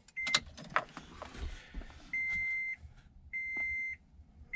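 High single-pitched electronic beeps: one short beep near the start, then two longer beeps about a second apart in the second half, with scattered clicks and a low knock of handling in between.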